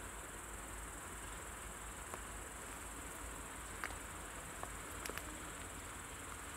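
Crickets chirping steadily in a continuous high trill, with a few faint short clicks.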